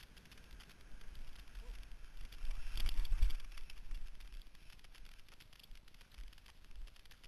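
Cross-country skis sliding downhill over snow, a faint crackly hiss, with a louder low rumbling swell about three seconds in that fades after a second or so.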